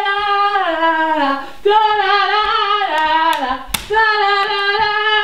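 A woman singing long, high held notes in three phrases, each sliding down at its end. A single sharp knock comes about three-quarters of the way through.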